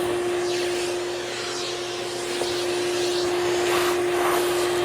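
Hoover Celebrity QS canister vacuum cleaner running steadily, a constant motor whine over the rush of its airflow, with brief swishes in the air noise as the nozzle draws in air and debris. The top motor bushing has been only lightly lubricated as a stopgap, and the owner still finds the motor not sounding right.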